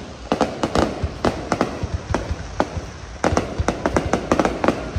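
Fireworks display: a rapid, irregular series of sharp bangs and cracks, growing thicker and louder from about three seconds in.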